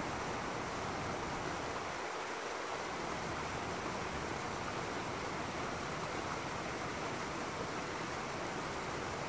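Small woodland stream rushing steadily over a rocky cascade.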